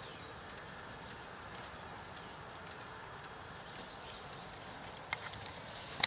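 Steady outdoor background hiss with faint, high bird chirps. About five seconds in come a few sharp clicks and knocks of camera handling, the loudest at the very end as the camera is moved.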